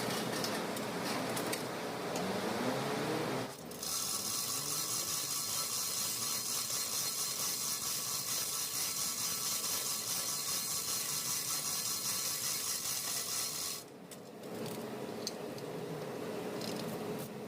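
A small power tool runs steadily for about ten seconds, starting and stopping abruptly, with light clinks and rattles of metal parts around it.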